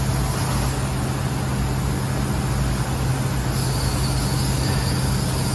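Steady drone of industrial shop machinery: a constant low hum under an even noise, with a high whine joining about three and a half seconds in.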